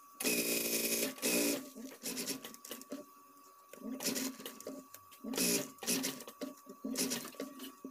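Industrial sewing machine stitching in short bursts, stopping and starting several times as binding tape is fed through its binding attachment onto the bag's edge. The longest run is about a second, right at the start.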